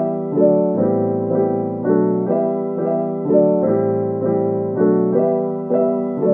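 Background music on a piano or keyboard, playing chords in a steady, even rhythm.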